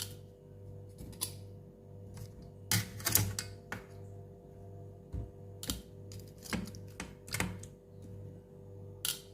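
Scattered sharp clicks and knocks of utensils against a grill as pieces of pork are turned, a cluster about three seconds in and single knocks after, over a steady low hum.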